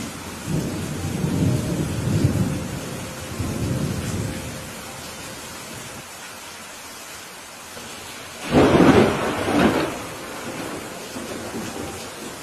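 Thunderstorm: steady rain falls throughout while thunder rumbles low for the first few seconds. About eight and a half seconds in comes a louder, sharper thunderclap that peaks twice and then rolls away.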